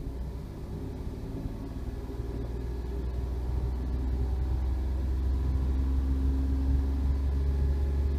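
2006 Toyota Aygo engine revved up and held at raised revs, a low steady rumble growing gradually louder.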